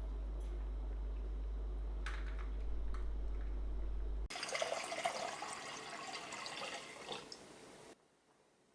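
A steady low hum with a few light clicks. About four seconds in it changes abruptly to water running, which goes on for about four seconds and stops suddenly.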